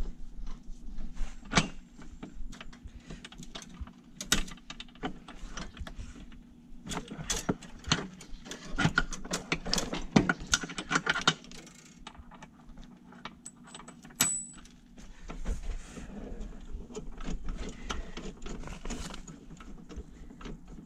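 Irregular metallic clinks, clanks and rattles as a Kubota tractor's three-point hitch is unhooked by hand: the top link and its pins are worked loose, and chains and hitch parts knock together.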